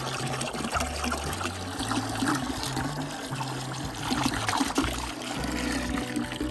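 Distilled water pouring in a steady stream from a plastic gallon jug into a plastic bucket of concentrated coolant, splashing and frothing the liquid as a 50-50 coolant mix is made.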